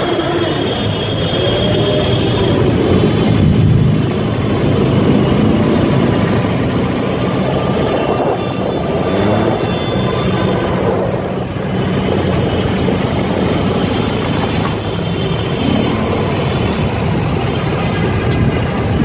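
Ural UH 750 motorcycle's flat-twin engine running under way, its pitch rising and falling several times as the bike speeds up and slows, over road and wind noise.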